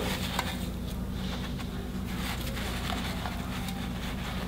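Gloved hands patting panko breadcrumbs onto crab cakes in a metal pan: soft, scattered pats and crumb rustles over a steady low hum.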